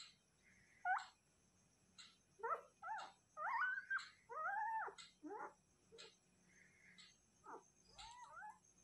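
Newborn puppy whimpering: a string of short, high squeaky cries that rise and fall in pitch, one about a second in, a rapid run of them in the middle and a few more near the end, as the puppy crawls about searching for its mother.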